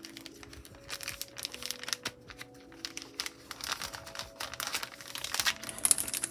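Packaging being handled and crinkled in a string of irregular crackles and rustles, growing louder near the end.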